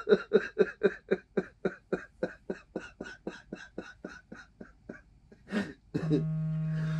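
A man laughing helplessly off camera: short breathy bursts about five a second that fade away over several seconds. Near the end a steady buzzing tone holds for about a second and a half.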